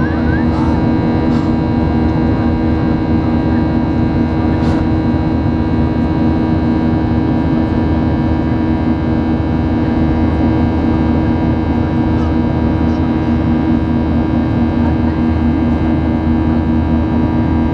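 Boeing 737-800 cabin noise beside the wing in flight: the CFM56-7B engines and rushing airflow make a loud, steady drone with a strong low hum.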